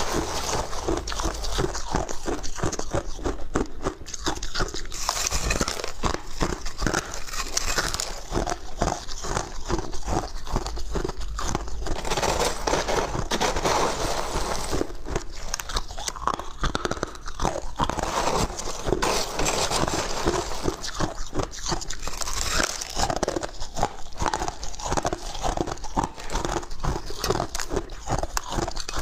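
Crushed ice being bitten and chewed close to the microphone: a dense, continuous run of crisp crunches. A metal spoon scrapes and scoops through the ice in a plastic tub between bites.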